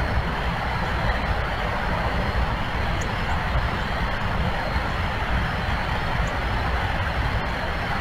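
Steady outdoor background noise: a low rumble under an even hiss, with a couple of faint high chirps about three and six seconds in.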